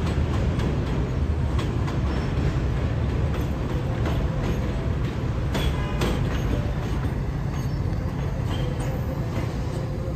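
R62A subway train running along elevated steel track: a steady, heavy rumble with faint clicks from the wheels, and a brief high wheel squeal about six seconds in.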